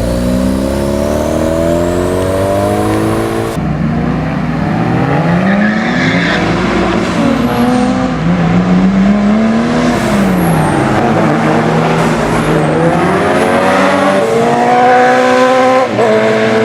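Loud car engines: one accelerating with a rising pitch, then, after a sudden change about four seconds in, an engine revved up and down several times in a row, and a rise in revs again near the end.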